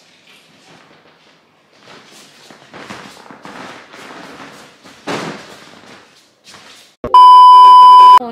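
Faint scattered scuffs and rustles, then near the end a loud, steady test-tone beep, the kind played with TV colour bars, lasting about a second and cutting off sharply.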